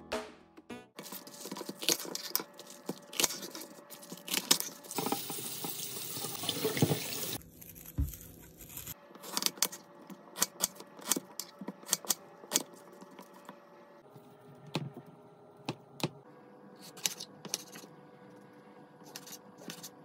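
A knife cutting onion and tomatoes on a wooden chopping board: irregular sharp knocks of the blade against the wood. About five seconds in, a steady hiss lasts around two seconds.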